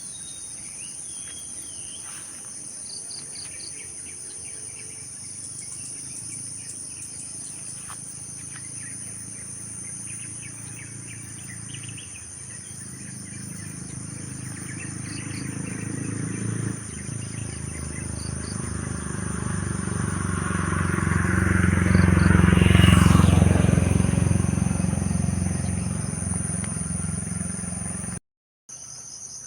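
Crickets or other insects shrilling steadily in two high, unbroken tones, with a few short bird chirps. A low rumble builds slowly, is loudest about two-thirds of the way in, then fades. The sound breaks off for a moment near the end.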